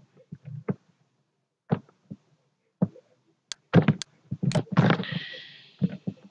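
Irregular clicks and dull thumps of handling at a computer desk, mouse clicks among them. A cluster of louder, sharper knocks comes about three and a half to five seconds in, the last trailing into a brief hiss.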